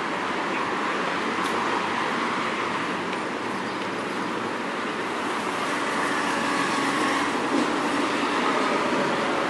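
Steady rolling noise of a bicycle ridden over paving stones, picked up from the handlebars, growing a little louder in the second half.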